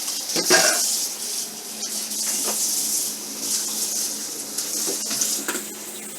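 Spoon stirring rice in a pot of water, knocking and scraping against the pot a few times, the loudest knock about half a second in, over a steady hiss.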